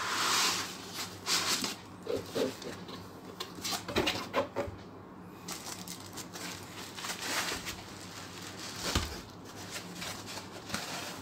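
Plastic wrap crinkling and a foam packing insert rustling as they are handled, in irregular bursts, the loudest right at the start.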